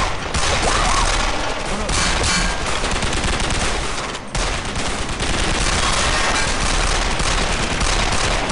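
Sustained rapid gunfire from several guns in a shootout, shots overlapping one another, with a brief break about four seconds in.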